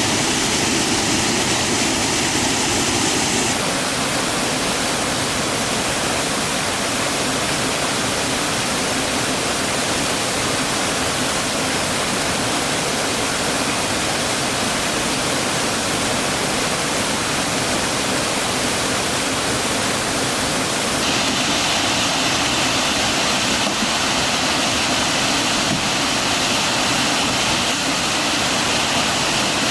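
Fast-flowing stream water rushing steadily in a loud, even wash. Its tone changes abruptly about four seconds in and again about twenty-one seconds in.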